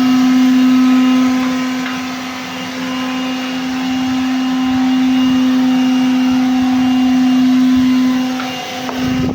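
A 1991 Soviet Tsiklon-M vortex vacuum cleaner's 600 W motor running with a steady, even-pitched whine and air rush. The level dips briefly twice, a couple of seconds in and near the end.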